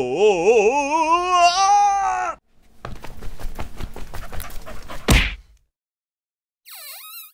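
A wavering, howling wail for about two seconds, then a rattling clatter ending in one loud hit, then a short swooping sound effect near the end.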